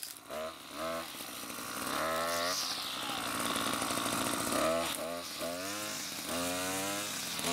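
Small petrol engine of a new Oleo-Mac string trimmer revving up and down in short throttle blips, with a few seconds of steady high running in the middle, as it is warmed up after its first cold start while the engine is still new and stiff.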